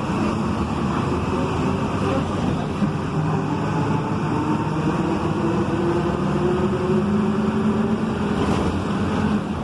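Volkswagen 17.230 EOD bus's driveshaft (cardan) and transmission droning loudly while the bus is moving, a whine that climbs slowly in pitch through the middle over steady running noise.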